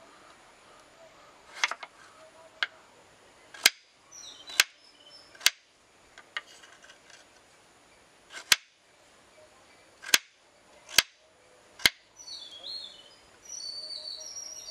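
Kitchen knife cutting peeled potatoes on a wooden cutting board: about ten sharp knocks as the blade strikes the board, spaced irregularly about a second apart. Birds chirp in the background, most busily near the end.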